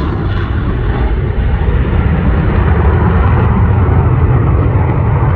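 Jet noise from a Boeing EA-18G Growler's two General Electric F414 turbofans in flight: a deep, rough rumble that grows gradually louder.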